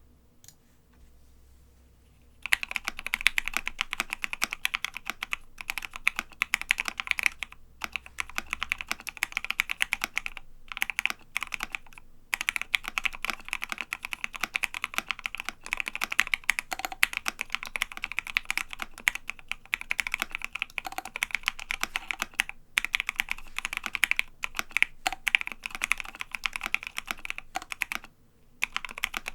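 Fast typing on a Savage65 keyboard with Krytox 205g0-lubed Gateron Ink Black linear switches, 65 g springs, an FR4 plate and MT3 Godspeed PBT keycaps. A dense run of keystrokes starts about two seconds in and goes on with brief pauses.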